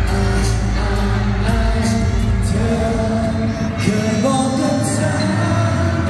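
Live pop song with singing, played loud and steady through the arena's sound system.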